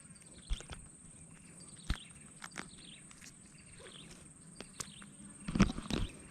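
Scattered faint taps and knocks, with a louder cluster of knocks near the end, over a steady high-pitched insect drone.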